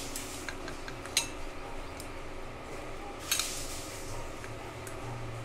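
Steel kitchen tongs clinking against a steel bowl while lifting and spreading boiled instant noodles. There are a few light clinks, with two sharper ones about a second in and just after three seconds in.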